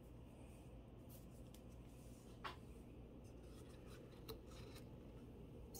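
Near silence: faint room tone with soft rubbing and two small clicks, about two and a half and four seconds in, from costume-jewelry rings being handled.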